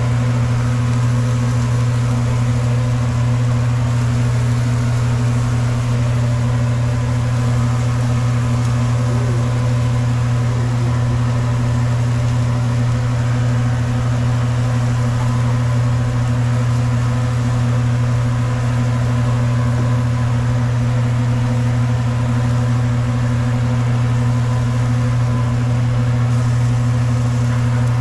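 A steady low mechanical hum that does not change, over a faint hiss.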